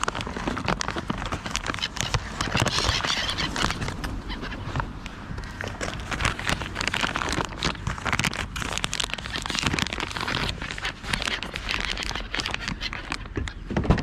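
Crows calling, with a clattering rustle running underneath.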